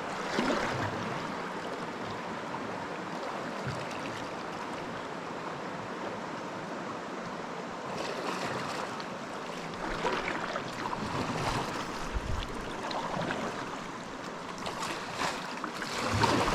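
River current rushing steadily around a canoe, with a few louder splashes and knocks of paddle strokes as it is steered through the run.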